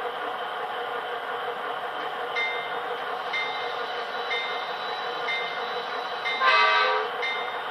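Model diesel locomotive's digital sound decoder playing a steady diesel engine sound, with a bell ringing about once a second from a couple of seconds in and a short horn blast near the end.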